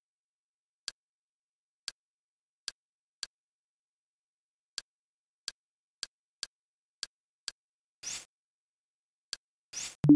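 Kodi menu interface sounds: about a dozen short clicks at uneven intervals as the cursor steps through a list, then a few short swooshes as menus are backed out of, and a loud low thump near the end.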